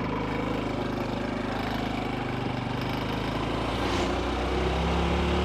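Honda CT125's single-cylinder four-stroke engine running steadily under way, its note shifting a little about two-thirds of the way through.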